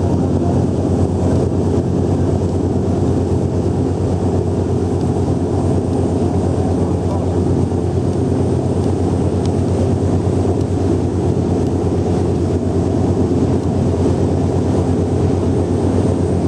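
A boat's engine running steadily, heard on board as an even drone, with wind noise on the microphone.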